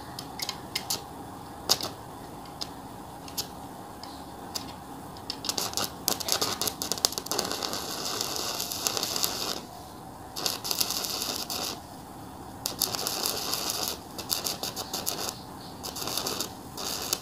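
Stick-welding arc from a 120 A MMA inverter welder: a few scattered ticks at first, then the arc catches about five seconds in and crackles in runs of a few seconds, broken by short pauses. The repaired welder is striking and holding an arc at raised amperage.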